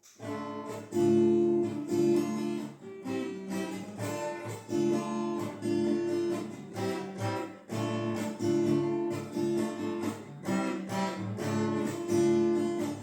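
Acoustic guitar played as a strummed instrumental introduction, a repeating chord pattern.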